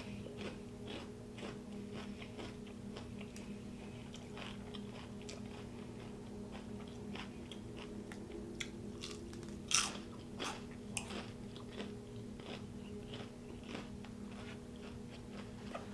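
Close-miked chewing and biting of food: steady soft crunches and wet mouth clicks, with one sharper crunch about ten seconds in.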